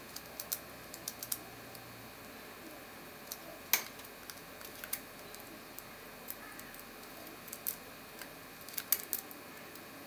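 Lock picks working inside a cross-key (cruciform) padlock: small, irregular metallic clicks and ticks as the pick moves over the pins, with a sharper click a little over a third of the way in and a cluster of clicks near the end.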